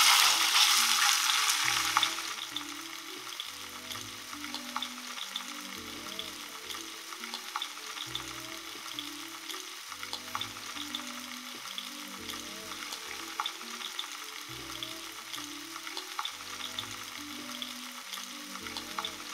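Lionfish fillets sizzling in hot coconut oil in a frying pan. A loud burst of sizzle as the fillet hits the oil settles after about two seconds into a steady frying hiss, with small crackling pops throughout.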